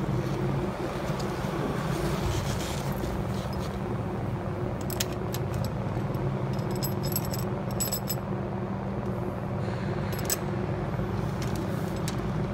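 A few sharp metallic clicks and clinks from working a bicycle's saddle rails and two-bolt seatpost clamp, about halfway through and again near the end. Under them runs a steady low hum.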